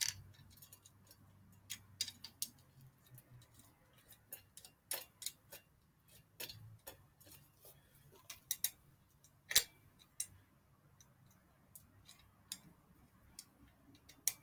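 Irregular light clicks and taps of metal bike parts and tools being handled during assembly, with one sharper click about nine and a half seconds in.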